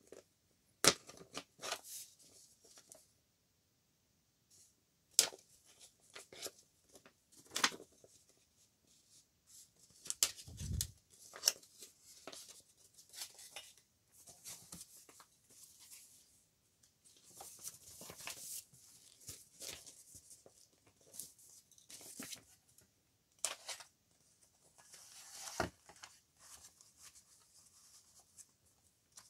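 Paper sheets and a clear plastic sleeve rustling and crinkling as they are handled and shifted, with scattered sharp clicks and taps of tools and a plastic guide ruler being picked up and set down.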